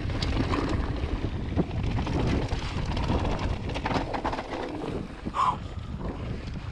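Ride noise of a Vitus Sommet mountain bike descending a dirt and gravel trail: tyres rolling and the bike clattering over bumps, with wind buffeting the microphone. A brief squeak about five and a half seconds in.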